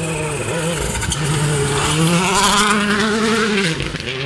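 Rally car approaching flat out on a gravel stage, its engine note climbing and stepping through gear changes, with a hiss of tyres and thrown gravel as it nears; the pitch drops sharply as it goes past near the end.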